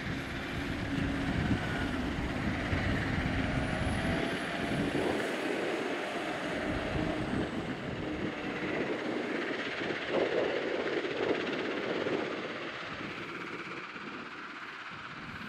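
Caterpillar 972M XE wheel loader's diesel engine running as the machine drives over quarry gravel, with steady engine and drivetrain noise and the sound of tyres on gravel. It gets somewhat quieter near the end.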